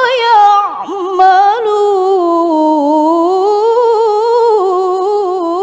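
A woman reciting the Quran in the melodic tilawah style, drawing out one long ornamented vocal line without a break. The pitch wavers in quick turns, dips about a second in, and climbs again around the middle.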